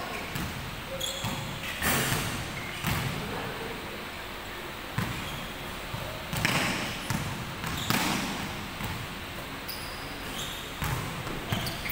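A basketball bouncing on a hardwood gym floor a handful of times, each bounce irregularly spaced a second or more apart, with echo after each one in the large hall.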